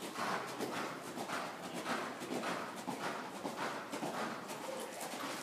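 A horse's hoofbeats on the sand footing of an indoor riding arena, ridden around a jump, with a regular rhythm of about two strides a second.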